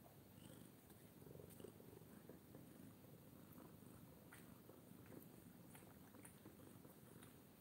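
Faint purring from a tabby cat, a low steady rumble with a few faint ticks.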